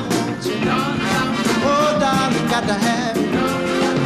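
Live band playing a soul song, with a voice singing drawn-out, sliding notes over a steady drum beat.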